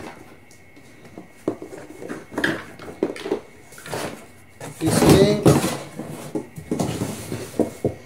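Handling noise of an unboxing: hard plastic vacuum-cleaner accessories knocking and clicking as they are taken out and set on a table, with the cardboard box rustling and scraping, loudest for about a second some five seconds in.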